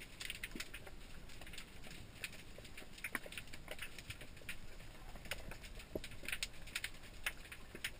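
Underwater crackling: irregular sharp clicks, several a second, over a faint low hiss.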